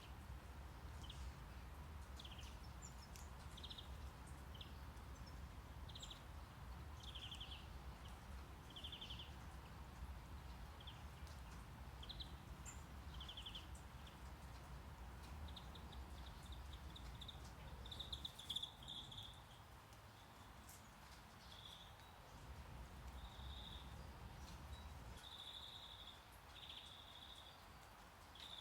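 Faint nature-sound background track: small birds chirping in short, high, repeated calls over a low steady rumble of brown noise. The calls come thicker in the second half, while the rumble drops away for a few seconds now and then.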